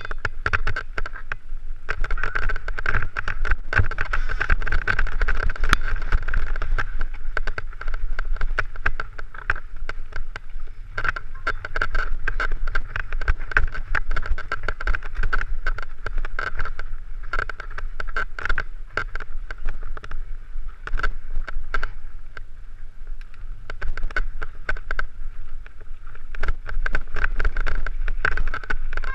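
A mountain bike rattling and clattering over a rough, rocky dirt track, heard from a helmet-mounted camera with wind rumbling on the microphone. A buzzing fades in and out several times over the ride.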